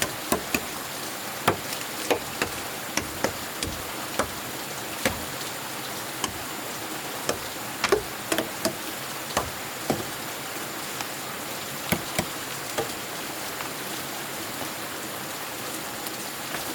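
Irregular sharp clicks and knocks, one or two a second, over a steady hiss.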